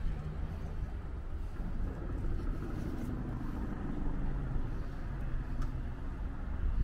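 A steady low rumble of road traffic, with no distinct events.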